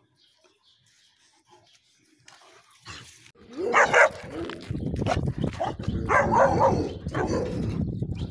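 Turkmen alabai (Central Asian shepherd dog) barking in a few loud calls, the first about three and a half seconds in and more around six seconds in, with a low rumble underneath.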